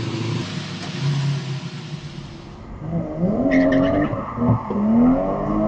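Car engine sounds: a revving car engine sound effect over the intro, then a car engine accelerating, its pitch climbing, dropping back about four seconds in and climbing again.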